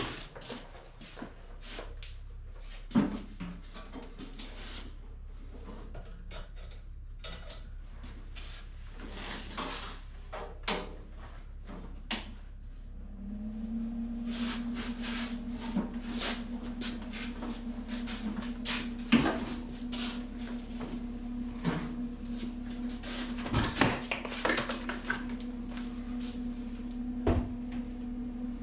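Scattered clanks, knocks and rattles of metal parts and tools being handled during fabrication work. About halfway through, a steady low hum starts and carries on beneath the knocks.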